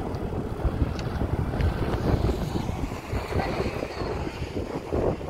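Wind buffeting the microphone in gusts, with a steady outdoor rumble underneath.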